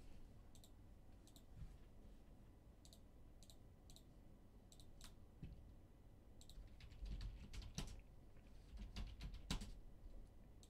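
Faint computer keyboard typing and clicking: a few scattered clicks at first, then a quicker run of keystrokes in the second half.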